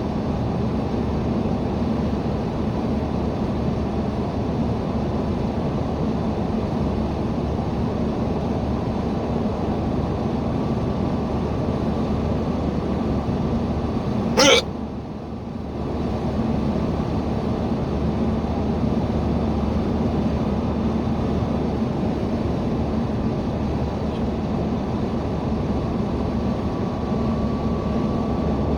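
Steady road and engine noise inside a moving car, with one short, sharp hiccup about halfway through.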